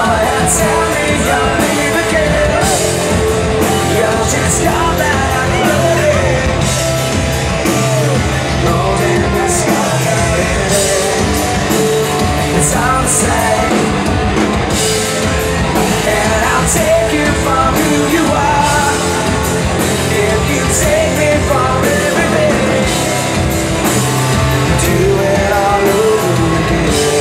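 Live rock band playing a song with electric guitars, bass and drums, cymbal crashes, and a sung lead vocal.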